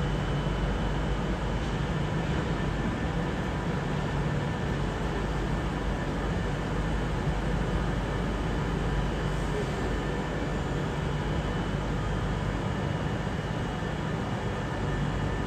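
Avanti West Coast Class 390 Pendolino electric train running slowly over the station pointwork. Its noise is a steady low rumble with a faint steady hum.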